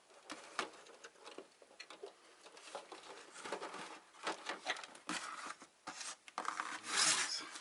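Irregular clicks, rattles and scraping as the parts of an APC Back-UPS RS 900 are handled during disassembly, with a louder scrape near the end.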